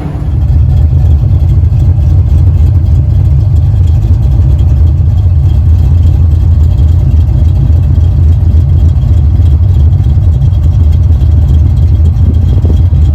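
A car engine running steadily with a loud, deep rumble.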